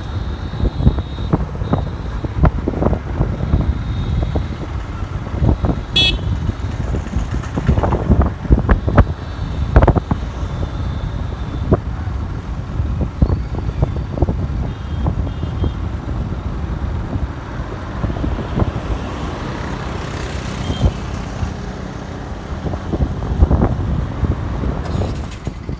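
Riding noise on a moving motorcycle: wind buffeting the microphone over a low road rumble, with a few short vehicle horn toots from the surrounding traffic.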